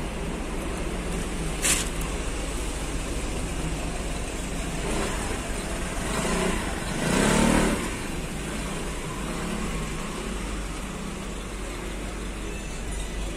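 Steady hum of road traffic, with one vehicle passing by, swelling and fading about seven seconds in, and a single short click near the two-second mark.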